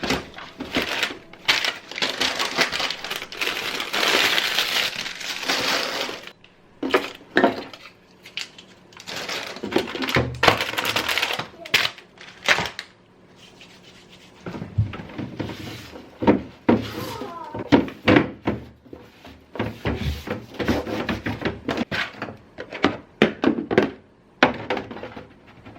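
Household items being handled at close range: an irregular run of knocks, clicks and clatter, with bursts of rustling like plastic packaging.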